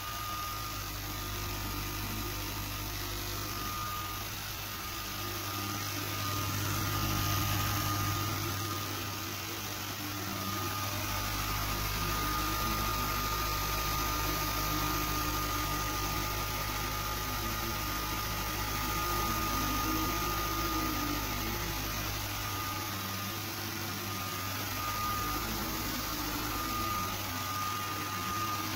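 Sculpfun S30 Ultra laser engraver running a cutting job: its stepper motors whine, rising and falling in pitch as the head moves, over a steady hum, a hiss and a thin high tone that drops out now and then.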